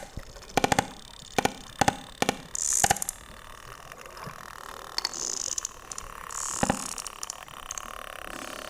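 Sperm whale clicks recorded underwater: sharp, irregularly spaced clicks, most of them in the first three seconds and a few more later, over a steady hiss of water.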